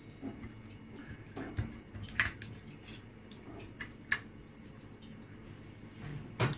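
Rotary pizza cutter rolling through a pizza on a glass plate, the metal wheel giving a few sharp clicks and taps against the glass, about two seconds in, about four seconds in and loudest near the end.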